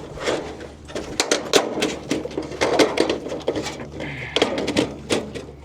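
Alu-Rex Double Pro aluminium gutter guard being pressed and snapped onto the back edge of a gutter: a run of sharp metal clicks and knocks.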